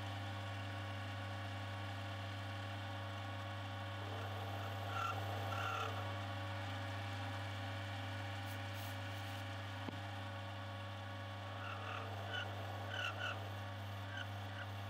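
Motor of a Clarke Metalworker 300 mm variable-speed mini lathe running steadily with the chuck spinning, a steady hum with a whine over it. Short high squeaks come about five seconds in and again in bursts near the end, with a brief spray hiss about halfway through.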